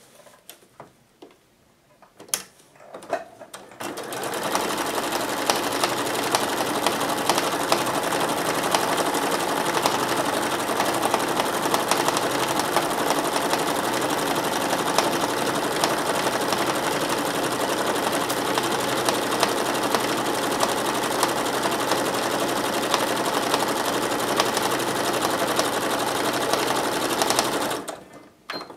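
Janome electric sewing machine quilting a long straight line through fabric and batting. A few faint clicks, then the machine starts about four seconds in, runs steadily at speed, and stops suddenly just before the end.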